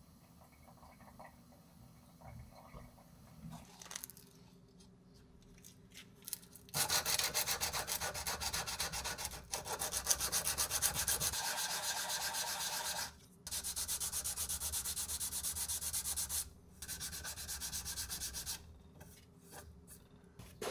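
Sandpaper being rubbed by hand along a steel knife blade in rapid back-and-forth strokes. It starts about seven seconds in and comes in three runs with short pauses between them.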